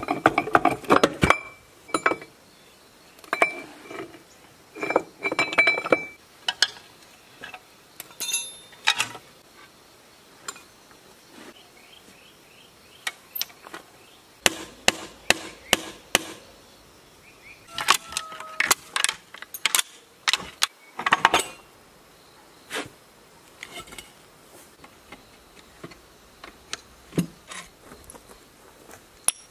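Metal clanks and clinks of hand tools and parts while an old tractor's transmission is taken apart: a wheel hub being worked off the axle and wrenches knocking on the gearbox housing. Irregular clusters of knocks with short metallic ringing, busiest in the first six seconds and again around the middle, then only scattered ticks near the end.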